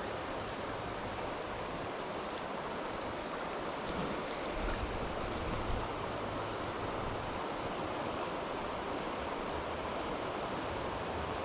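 Steady rush of river water flowing over rocks, an even noise without pauses.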